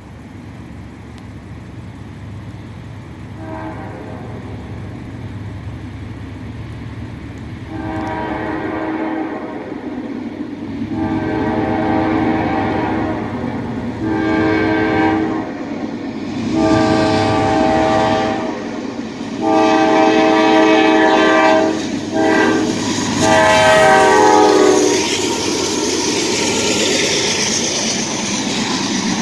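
A Norfolk Southern freight train's diesel locomotive air horn sounds a string of chord blasts that grow louder as the train approaches. The last four blasts run long, long, short, long, the grade-crossing signal. Near the end the locomotive passes close, and its engine and wheel rumble take over from the horn.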